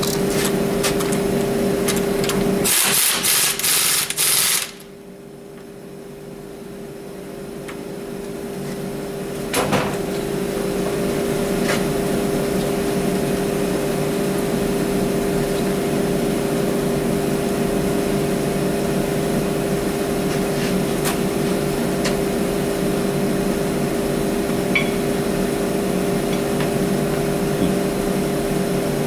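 A steady machine hum with one clear tone runs throughout. About three seconds in, a loud hiss lasts about two seconds and then cuts off. A few light clicks and knocks follow.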